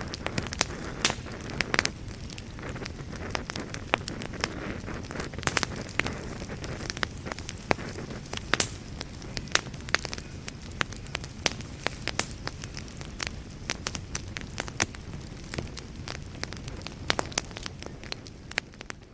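Wood fire in a fireplace crackling, with frequent sharp pops and snaps over a steady low rumble of flames. The sound dips in level right at the end.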